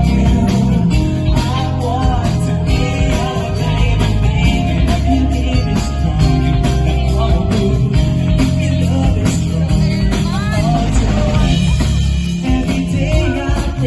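Live band playing a song, with a singer's voice over drums and bass.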